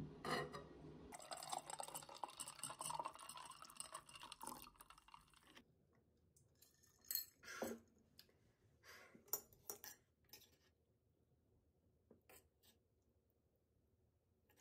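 Faint scattered clinks of a metal spoon and tableware against ceramic bowls and dishes while food is served at the table, after a faint steady hiss in the first few seconds.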